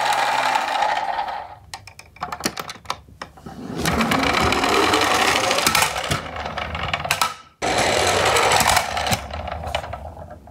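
Plastic toy garbage truck rolling over a hard wooden floor: a loud rattling rumble of its plastic wheels in two runs, about four and eight seconds in, with a rising whine during the first run. Clicks and knocks come before the runs as the toy is handled and set down.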